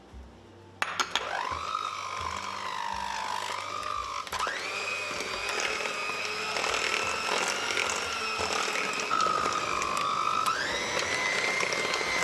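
Handheld electric mixer starting with a few clicks about a second in, then running with a steady motor whine as its beaters churn thick cornmeal cake batter in a stainless steel bowl. The whine steps up in pitch twice, at about four seconds and again near the end.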